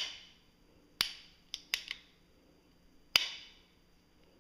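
AR-15 trigger group, with a polished trigger and anti-rotation pins fitted, worked by hand in dry-fire: sharp metallic clicks of the hammer and trigger. Three loud clicks, each with a brief ring, come at uneven spacing, with two fainter clicks close together between the second and third.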